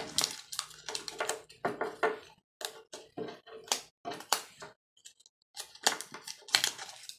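Paper fish cutouts being pressed and taped onto a wooden clothespin on a tabletop: irregular crinkling rustles and light taps and clicks of paper, fingers and wood, several a second with short pauses.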